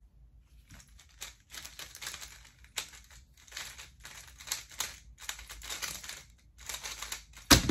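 An X-Man Tornado V3 magnetic 3x3 speedcube being turned by hand in quick runs of moves, its plastic layers clicking and scraping, with a louder knock near the end.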